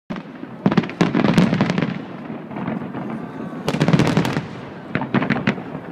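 Aerial firework shells bursting and crackling in three rapid clusters of sharp bangs: about a second in, around four seconds, and again just after five seconds.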